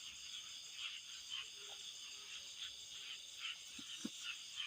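Night chorus of insects and frogs: a steady high-pitched insect drone with short calls repeating about twice a second. Two soft knocks come near the end.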